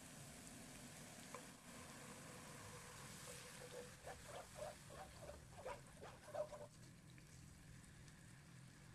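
Faint sizzle of onions frying in oil, with a run of short squeaks about three to six seconds in as a wooden spatula stirs gochujang against the pan.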